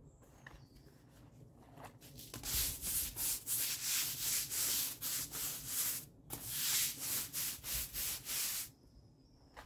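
Stiff long-handled brush scrubbing patio paving slabs in rapid back-and-forth strokes, about four a second, working a black spot treatment solution into the stone. The scrubbing starts about two seconds in, pauses briefly near the middle, and stops shortly before the end.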